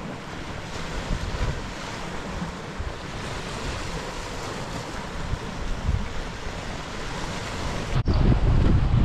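Sea waves washing and breaking over granite rocks, with wind. About eight seconds in, the sound cuts to much louder low wind buffeting the microphone.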